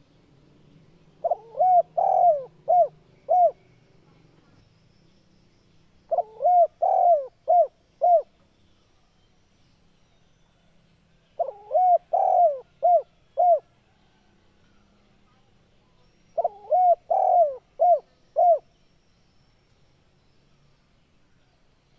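Male spotted dove (tekukur) cooing: four phrases about five seconds apart, each a run of rolling coos that ends in two short separate 'kuk' notes, the 'kuk 2' song type.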